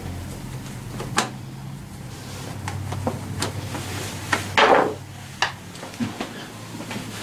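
Scattered clicks, taps and a short rattle from a screwdriver and small screws being worked out of a scooter's plastic front fender, the loudest about four and a half seconds in, over a steady low hum.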